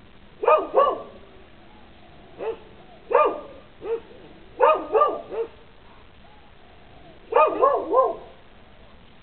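Dogs barking in short runs of one to four sharp barks, with pauses of a second or so between runs; the longest run comes near the end.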